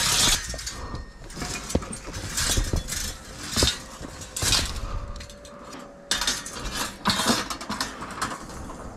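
Handling noise from climbing on a shingled roof and its wooden roof ladder: irregular footsteps and knocks, with light metallic clinks from slotted angle iron being carried and a jacket rustling against the microphone.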